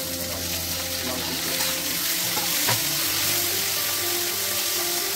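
Chopped tomatoes and small onions sizzling in hot oil in a frying pan, starting loud as they are tipped in and holding steady while they are stirred, with a single knock of the spoon about two and a half seconds in.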